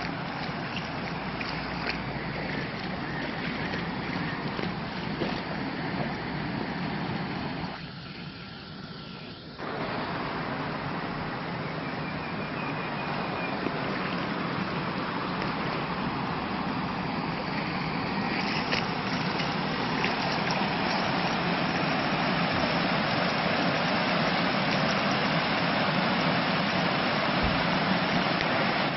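Floodwater rushing and flowing with a steady noise, dipping briefly about eight seconds in.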